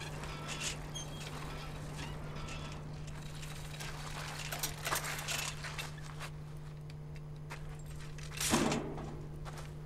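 Old bicycle clicking and rattling as it is ridden over rough dirt ground, over a steady low hum, with a short louder burst of noise near the end as it comes to a stop.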